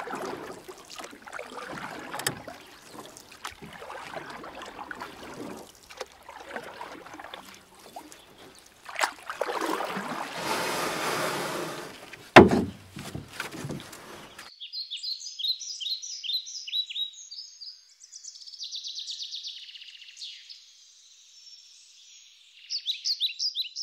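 Water splashing and washing around a kayak during paddling, heard from a camera on the kayak's deck, with a single sharp knock about twelve seconds in. About two-thirds of the way through the water sound stops and small birds chirp repeatedly.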